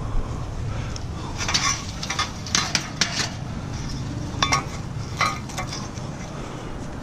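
Scrap metal pieces from a barbecue grill clanking and clinking against each other and the truck bed as they are handled. The clinks come in a cluster a second or so in, then more a few seconds later, over a steady low rumble.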